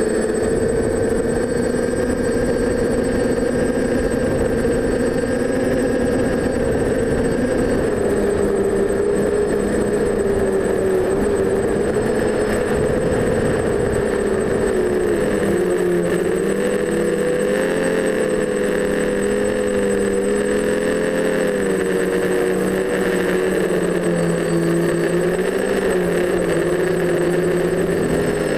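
Quadcopter's four brushless motors (DJI 920Kv) spinning 9x5 propellers with a steady buzzing whir. The pitch shifts and wavers as the flight controller changes each motor's speed, dropping slightly about a third of the way in. In the second half the motors drift apart into several separate tones. A faint thin high whine runs underneath.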